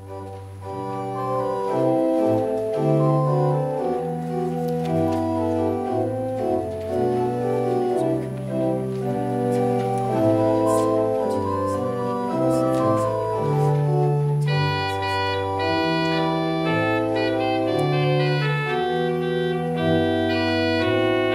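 Organ music: sustained chords over a moving bass line, fading in at the start. About fourteen seconds in, brighter high notes join above the chords.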